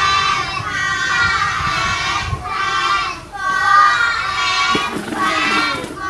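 High children's voices singing and calling out in long, wavering notes, broken by short pauses every second or so.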